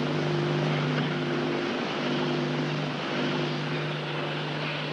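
A steady low electrical hum with a constant hiss over it, the noise of a worn archival film soundtrack.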